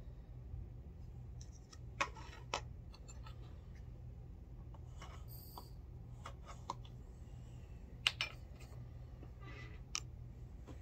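Sharp clicks and light knocks of reloading gear being handled on a bench: brass cartridge cases, a plastic powder funnel and a powder measure. About six in all, the loudest about two seconds in and about eight seconds in, with a brief high beep near the middle and a low steady hum underneath.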